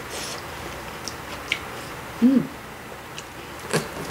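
Table-side eating sounds: a few light clicks of metal chopsticks against a noodle bowl, a short hum that rises and falls about two seconds in, and a sharper knock near the end.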